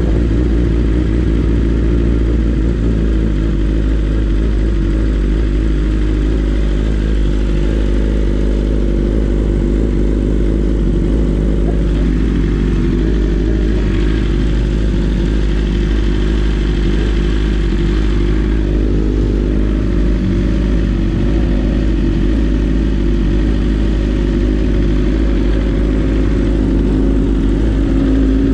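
Sport motorcycle engines running steadily at low revs, idling and rolling slowly with no hard revving. The closest is the BMW S1000RR's inline-four; other sportbikes are running around it.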